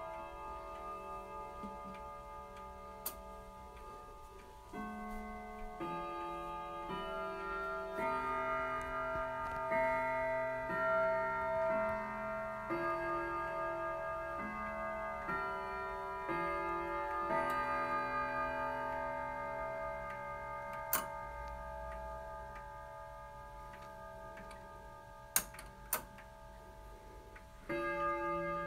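1950s grandfather clock playing its chime melody on the approach of the hour, a tune of bell notes changing about once a second that then rings away, over its ticking. A few sharp clicks sound, and the first stroke of the hour strike comes near the end.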